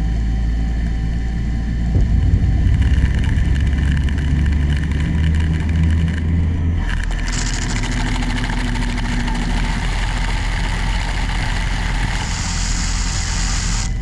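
DN Solutions SMX 3100ST mill-turn dry-turning a heavy cast iron brake rotor blank with a ceramic insert: a steady low spindle rumble, and about halfway through a brighter cutting hiss that is loudest near the end.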